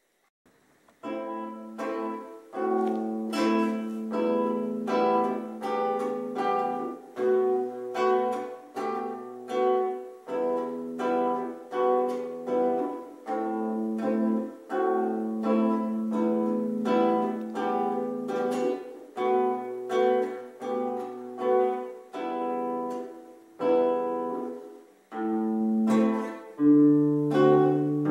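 Solo classical guitar, its nylon strings plucked. A piece starts about a second in after a brief silence and runs on as a steady stream of picked notes over a low bass line.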